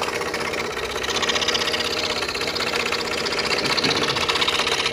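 Scroll saw running and cutting jigsaw puzzle pieces from a thin wooden board, its fine blade moving rapidly up and down with a steady, fast, even buzz.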